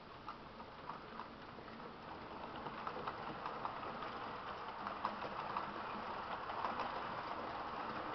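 H0-scale Märklin model train running on the layout's track: a steady motor and wheel rumble with irregular light clicks, growing louder over the first few seconds and then holding steady.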